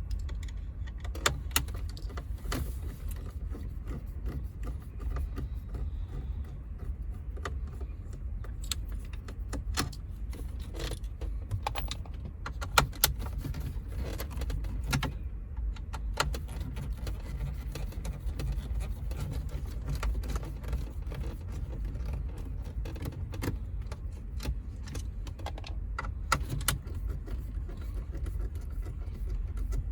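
Scattered small metallic clicks and clinks of hand tools working the T20 Torx screws that hold the car's radio in the dash, over a steady low background rumble.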